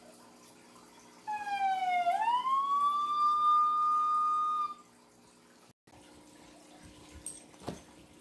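A single whistled note about three seconds long: it dips in pitch, then sweeps up to a steady held tone and stops. A faint click follows near the end.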